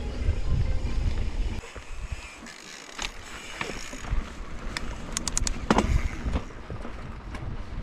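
Mountain bike being ridden on a dirt trail: wind buffets the microphone, easing about a second and a half in, followed by scattered clicks, knocks and rattles from the bike over the rough ground.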